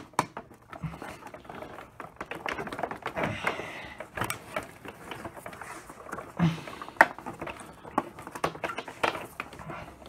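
Irregular plastic clicks, creaks and knocks from the all-plastic hood of a Hoover Elite upright vacuum being pried and wrenched at its stubborn latch clips, with one sharp click about seven seconds in.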